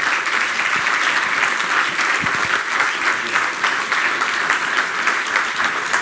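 An audience clapping steadily and without a break, many hands together.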